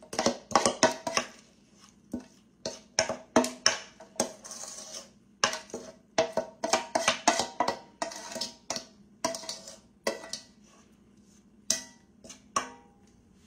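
A spoon scraping and knocking against an enamelware bowl while bean mixture is scraped out into a baking dish. It is a quick run of clinks and scrapes with the bowl ringing briefly after some strikes, easing off after about ten seconds.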